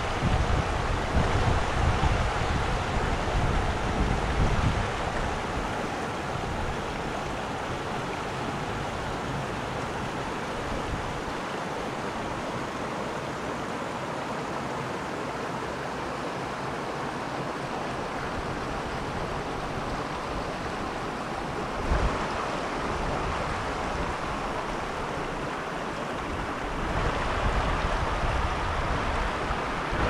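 Cascading mountain creek: a steady rush of water tumbling over rocks. Wind buffets the microphone at the start and again near the end, and there is a single brief thump a little past two-thirds of the way through.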